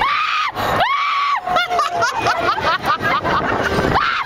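Passengers on a fairground thrill ride screaming: two long held screams in the first second and a half, then a jumble of shorter overlapping screams and yells, with another long scream near the end.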